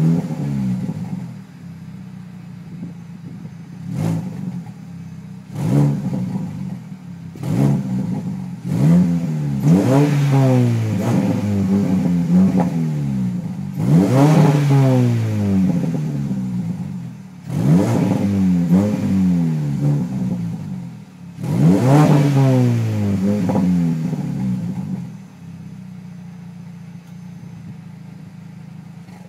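MINI One engine revved through a Playmini aftermarket exhaust: about a dozen quick throttle blips, each rising and falling in pitch, with idle in between. It settles to a steady idle near the end.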